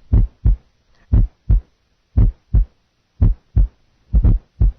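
Heart sounds heard through a stethoscope bell pressed firmly on the chest: five beats at about one a second, each a pair of short thumps, S1 then S2. Under the bell's pressure the fourth heart sound (S4) is no longer heard.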